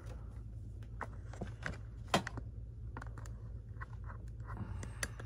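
Scattered light clicks and taps of small parts and tools being handled on a workbench, one sharper knock about two seconds in, over a steady low hum.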